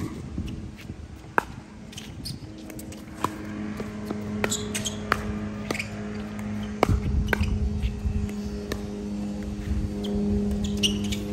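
Pickleball rally: sharp pops of paddles striking the plastic ball, roughly one every second, with a few short high squeaks. A steady low mechanical hum runs underneath.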